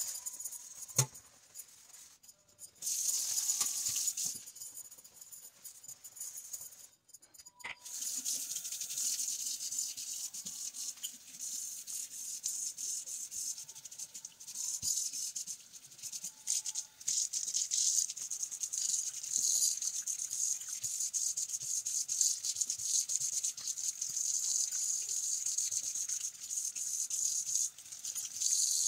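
Scrubbing a stainless steel kitchen sink with a sponge scourer, short scratchy strokes. About eight seconds in, the tap starts running steadily as the sink is rinsed, water splashing on the steel.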